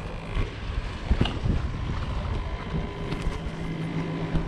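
Wind buffeting the microphone in a steady low rumble, with one knock about a second in and a few light clicks around three seconds. A steady low hum comes in near the end.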